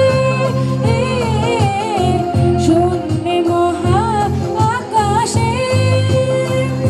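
A song sung live through a PA loudspeaker: a singing voice with wavering, bending pitch over a long-held accompanying note and a steady low bass.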